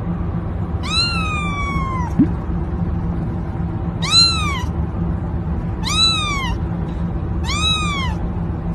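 Orange tabby kitten meowing four times, high calls that rise then fall in pitch, the first one the longest, over a steady low hum.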